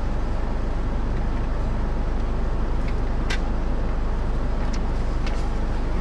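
Steady low hum and rumble of a car's idling engine heard inside the cabin, with a few faint light ticks.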